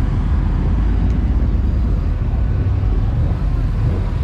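Car engine idling, a low and steady sound with no change in pace.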